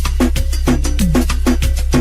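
Latin dance beat loop, dense fast percussion strokes with short hits that drop in pitch over a continuous deep bass: a salsa-style remix base.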